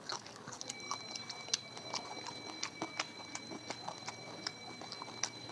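Close-miked eating sounds: chewing with irregular wet mouth clicks. A thin steady high tone runs underneath from just under a second in.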